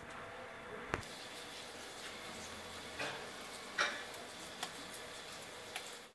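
Steady hiss of rain mixed with wet snow falling, with scattered ticks and taps of drops landing. There is a sharp tap about a second in, and louder taps around three and four seconds in.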